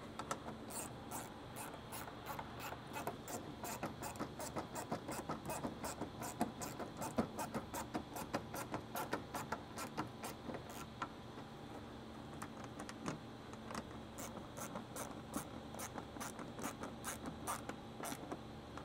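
Hand ratchet clicking in quick runs as a bolt is turned in by hand, with short pauses between strokes and a lull past the middle.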